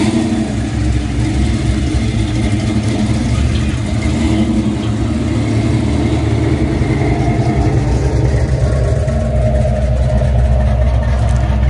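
A car engine running steadily: a loud, even, low drone.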